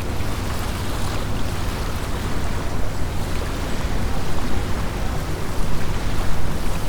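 Autumn wind blowing over a lake, with small waves lapping on the shore: a steady rushing noise that swells gently, over a low rumble of wind on the microphone.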